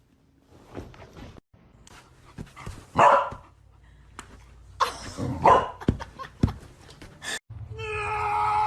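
A dog barking several times, loudest about three seconds in and again about five and a half seconds in. Near the end a steady sound of several held tones starts.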